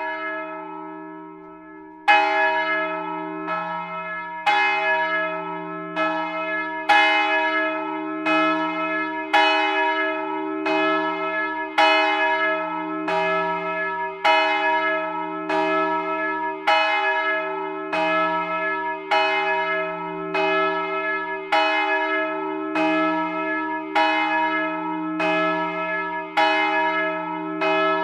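The 984 kg Jézus Szíve great bell, bronze, cast by László Szlezák in 1927 and pitched on E, swinging on its raised yoke under a linear motor and ringing. After a first stroke that dies away, its clapper strikes regularly from about two seconds in, about every 1.2 seconds, alternately harder and softer, with a long low hum sounding between strokes.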